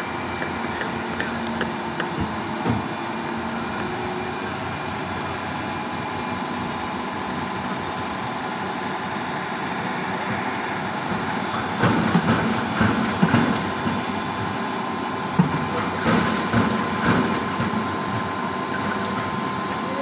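Sermac truck-mounted concrete boom pump running: a steady mechanical hum with a thin, even whine. A run of loud, irregular knocks and clatter comes in about twelve seconds in and lasts some five seconds.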